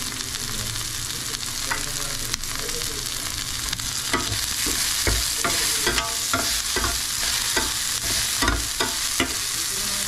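Chopped red onion and garlic sizzling in oil in a stainless steel frying pan. From about four seconds in, a metal spatula stirs them, scraping and clacking against the pan about three times a second.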